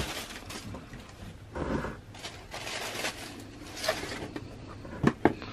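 Tissue paper crinkling and a cardboard shoebox being handled as a sneaker is unwrapped and lifted out, in irregular rustles, with two sharp knocks close together near the end.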